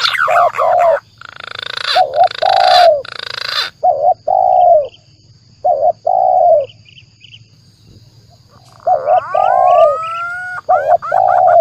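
Bird-lure recording of spotted doves (tekukur) cooing in short arching notes, in pairs and threes with pauses, mixed with green pigeon (punai) calls. Near the end, rising whistled glides sound over the coos. A hissing rush of noise lies under the coos from about one to four seconds in.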